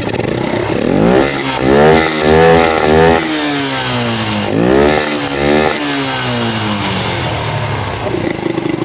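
Yamaha FZ's single-cylinder engine, running with its air filter removed, revved twice from idle. The revs climb and waver high for a couple of seconds, fall, climb again briefly, then settle back to a steady idle near the end.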